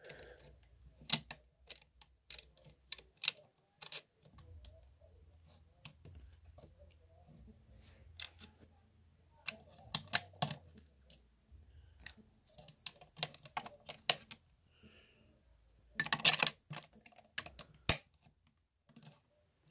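Plastic LEGO bricks clicking and snapping as pieces are handled and pressed onto a model, in irregular sharp clicks with a dense burst of them about sixteen seconds in.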